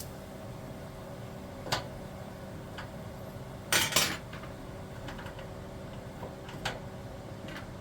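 Dishes and metal cutlery clinking: a few sharp clatters, the loudest cluster about four seconds in, over a steady low hum.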